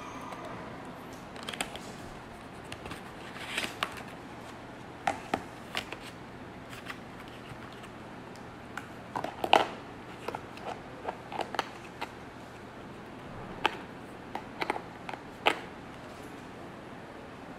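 Cardboard box being opened by hand and a plastic inner tray slid out and handled: scattered clicks, taps and rustles, the sharpest click about halfway through.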